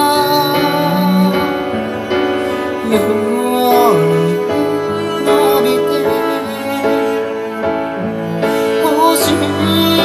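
Recorded pop song with piano among the instruments, played through B&W PM1 bookshelf speakers driven by a Denon PMA-1500RE amplifier. The bass is turned down on the tone control and the bass-reflex ports are half-plugged with sponge.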